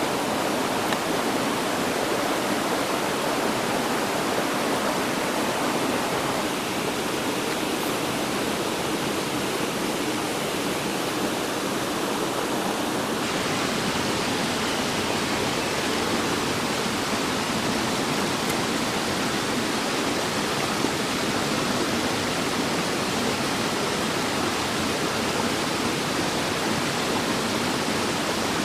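Steady rushing of flowing water from a stream, a constant even wash with no distinct events; its tone shifts slightly about 6 and 13 seconds in.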